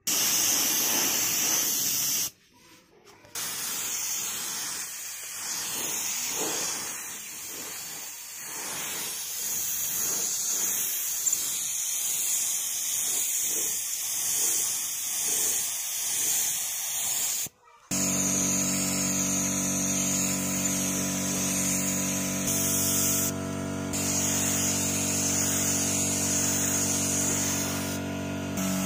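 Gravity-feed air spray gun hissing as it sprays silver paint onto a helmet shell. After a cut about two-thirds through, a steady motor hum runs under the spray hiss.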